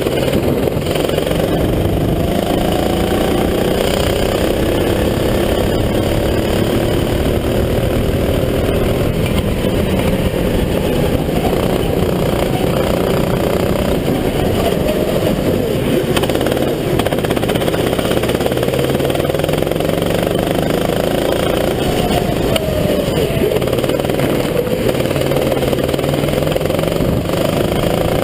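Sodi RT8 rental kart's four-stroke engine, recorded onboard, its pitch rising and falling again and again as the driver accelerates out of corners and lifts into them.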